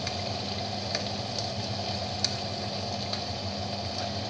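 Pot of plov rice simmering as its last water boils off: a steady bubbling hiss, with a couple of faint clicks as a plastic spatula smooths the rice.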